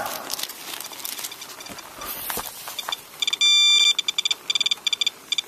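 A SOEKS radiation dosimeter beeps steadily for a moment a little over three seconds in, then chirps in rapid, irregular short beeps as it registers radiation at the rain downspout. Faint handling rustle comes before the beeping.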